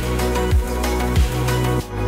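Electronic background music with a steady kick-drum beat, about one stroke every two-thirds of a second, over sustained bass notes; the bass line changes near the end.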